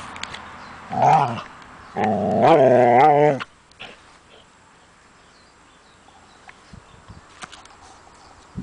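Kerry blue terrier play-growling: a short growl about a second in, then a longer, wavering growl of about a second and a half. After that only faint ticks are heard.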